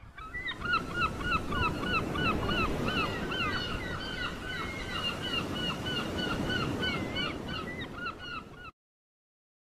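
A flock of birds calling all at once, many short calls that bend up and down in pitch, over a steady rushing wash of noise; it all cuts off abruptly about a second before the end.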